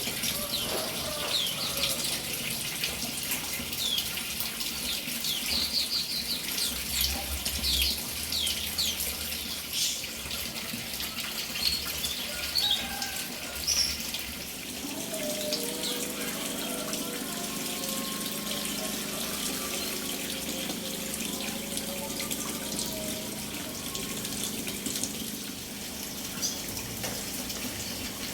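Running water pouring and splashing steadily, with small birds giving many quick, high, falling chirps over it, most of them in the first half. From about halfway a low steady hum joins the water.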